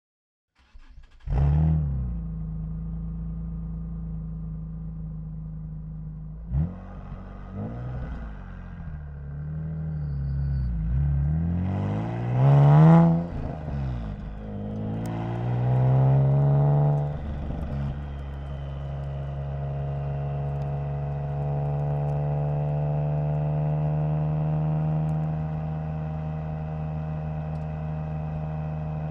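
Nissan 370Z's 3.7-litre V6 starting about a second in with a brief flare, settling to idle, then blipped in several free revs, the loudest about 13 seconds in. After a longer rev it holds a steady, raised engine speed to the end.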